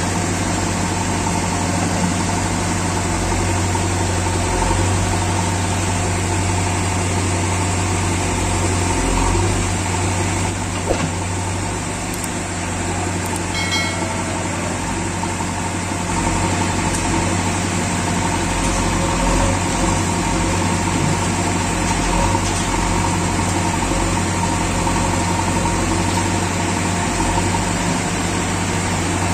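JCB 3DX backhoe loader's diesel engine running with a steady low drone while the backhoe arm digs and swings sand, the level dipping slightly about halfway through.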